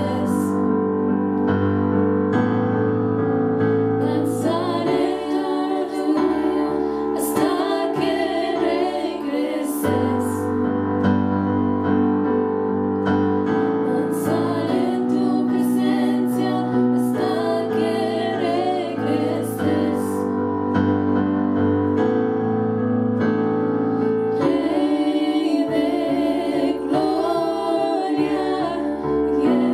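Three women singing a slow worship song in harmony into handheld microphones, over sustained keyboard chords that change every few seconds.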